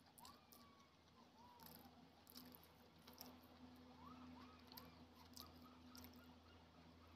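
Faint wet squishes and soft clicks of fingers mixing rice with curry gravy on a plate, over a steady low hum. A short run of faint high chirps comes about four seconds in.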